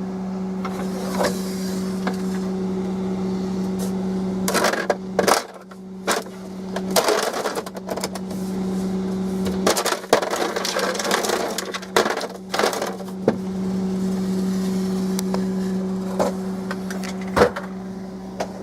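Whirlpool refrigerator's ice maker running: a steady low hum that cuts out briefly twice and comes back. Several short knocks and clattering noises break in over it.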